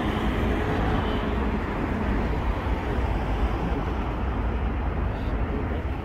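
Steady city street noise with a low rumble of traffic, no single event standing out.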